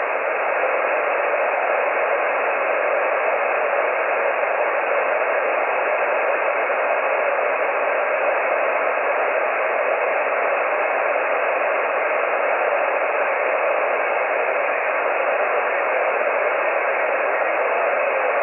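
Shortwave amateur radio receiver tuned to the 20-meter band in sideband mode, giving only an even hiss of band noise through its narrow voice passband, with no station heard.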